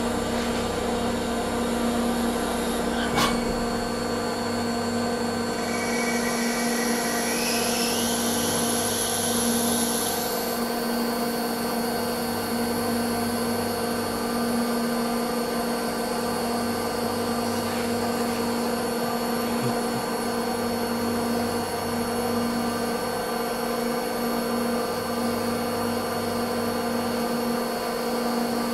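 Nomura NN-32YB2 CNC lathe running and machining a bar: a steady machine hum with a thin high whine, a sharp click about three seconds in, and a brighter cutting hiss that rises in pitch from about six to ten seconds in.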